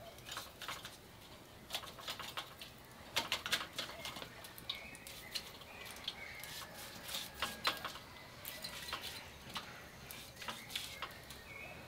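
Scattered light clicks and scrapes of a wooden-handled utensil in a ceramic bowl and against a wire grill basket as sauce is basted onto whole fish grilling over a wood fire.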